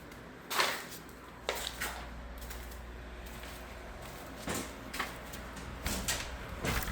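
A few short knocks and bumps at irregular intervals over a steady low hum.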